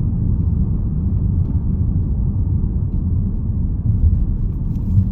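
Steady low rumble of a car driving along a road, heard from inside the car: engine and tyre noise with no clear pitch.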